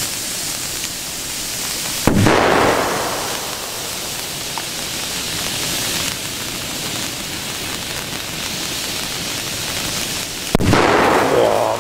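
Steady hissing of burning Bengal flares and ground fireworks spraying sparks, broken by two loud firecracker bangs, one about two seconds in and one near the end, each echoing briefly.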